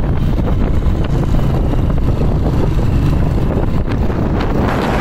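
Wind rushing over the microphone on a moving motorcycle, with the motorcycle engine running underneath; a steady, loud rumble throughout.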